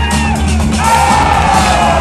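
Loud DJ music with a heavy bass beat. A crowd whoops and yells over it, with long gliding shouts from about the middle on.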